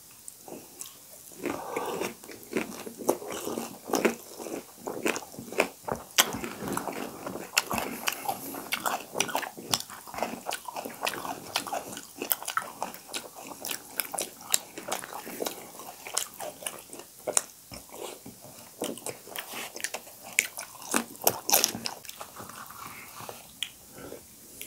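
Two people eating pani puri at close range: crisp puri shells crunching as they are bitten, with chewing between the crunches, in a dense, irregular run.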